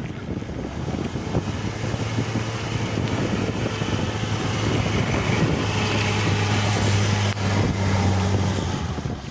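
Four-wheel-drive vehicle's engine running under load, a steady low hum that grows louder through most of the stretch and eases near the end, with wind buffeting the microphone.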